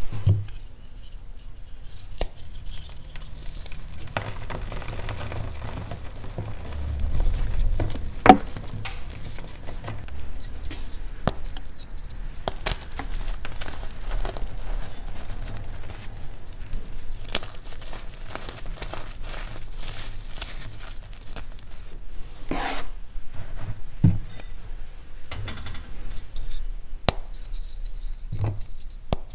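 Hard-mix reformed gym chalk being crushed and crumbled in the hands: a steady crunching and grinding, broken by sharp snaps as blocks and chunks break, the sharpest about eight seconds in.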